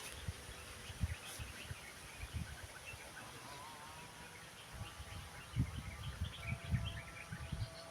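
Faint outdoor ambience with scattered low bumps and thumps, heaviest in the second half, and faint thin bird calls from partway through.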